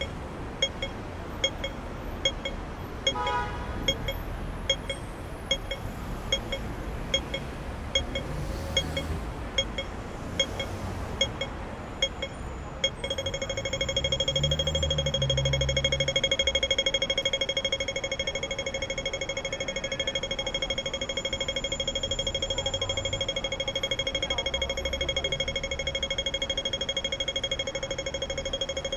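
Pedestrian crossing signal ticking: a slow, regular tick at first, then about halfway through it switches abruptly to a fast, continuous rapid-fire ticking, the audible sign that the crossing has turned to walk. Low traffic rumble underneath.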